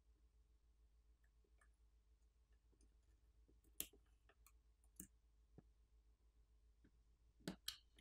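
Sparse small clicks and taps from tools handling the phone's internal parts during disassembly, the loudest about four seconds in and a close pair near the end, over a faint low hum.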